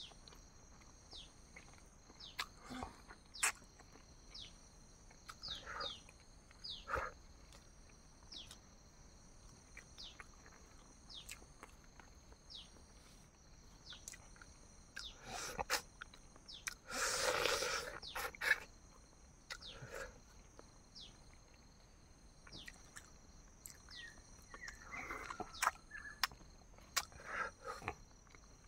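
Mouth sounds of someone eating boiled eggs, coming in scattered short bursts with one longer, louder stretch about two-thirds of the way through. Behind them are a steady high-pitched insect drone and repeated short falling chirps about once a second.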